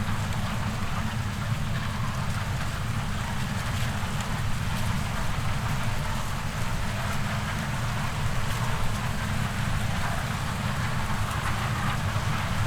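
Heavy farm machinery running steadily: an even, low engine drone with a constant hiss over it.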